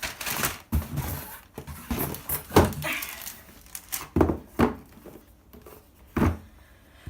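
Packaging being handled: paper and cardboard rustling, with several knocks as things are moved off a table.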